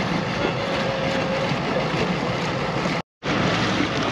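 Large diesel outboard motor on a RIB running steadily while moored, its propeller churning the water. The sound drops out for a split second about three seconds in, then the same running noise resumes.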